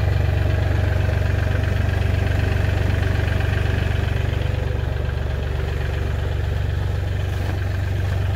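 Compact tractor's diesel engine idling steadily.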